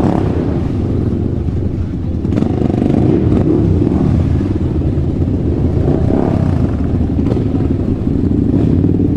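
A motor vehicle engine running steadily and loudly, with a low, even hum.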